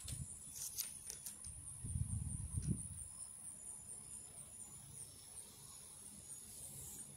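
Quiet outdoor ambience: wind rumbling on the phone's microphone in gusts, strongest about two seconds in, over a steady faint high-pitched whine, with a few soft rustles near the start.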